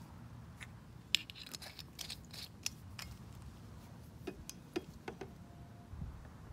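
A scatter of small, sharp, irregular clicks and taps over a few seconds, the sound of handling at close range.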